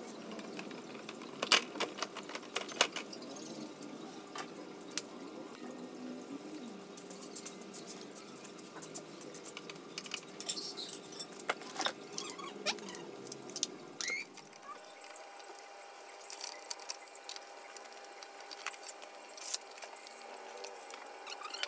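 Sharp clicks, knocks and light rattles of a scooter's plastic rear body cowl being worked loose and lifted off the frame, loudest in a cluster of clacks near the start.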